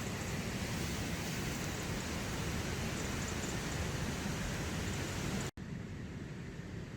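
Steady hiss of rain falling on a tent's flysheet. About five and a half seconds in it cuts off abruptly and resumes softer and duller.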